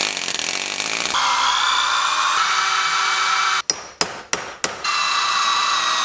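Pneumatic air hammer with a punch bit hammering on a rust-seized steel door hinge pin, a loud, steady buzzing chatter. A little over halfway through it is cut to a few short bursts, then runs steadily again; the pin is seized with rust and does not come out.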